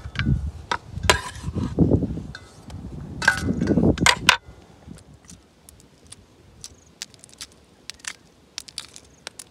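Knife slicing onion on a plastic cutting board, with several sharp knocks of the blade on the board. About four seconds in this gives way to quiet, scattered small cracks of shell being peeled off a hard-boiled egg.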